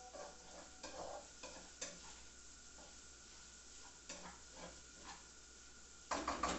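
Calabresa sausage and bacon frying in a pan with a faint sizzle, while a utensil stirs them, scraping and knocking against the pan every half second or so. A louder burst of scraping and knocking comes near the end.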